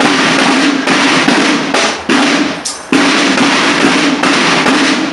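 Drums playing loud, dense rolling patterns in phrases of one to two seconds, each starting sharply, with short breaks between them.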